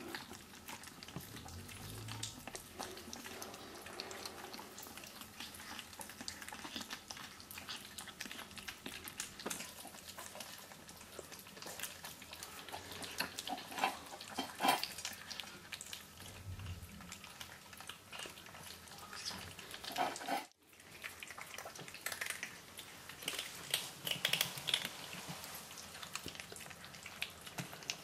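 Sphynx kittens eating wet cat food from stainless steel bowls: a steady stream of small wet chewing, licking and smacking clicks, with a few louder clicks against the bowls about halfway through. The sound breaks off for an instant about two-thirds of the way through.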